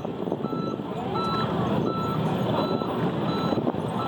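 A vehicle's reversing alarm beeping at an even pace, about six beeps, over steady background noise.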